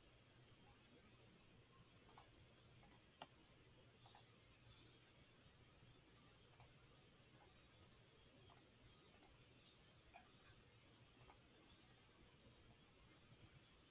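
Computer mouse button clicks: about nine sharp, short clicks at irregular intervals, several coming in quick pairs, over near-silent room tone.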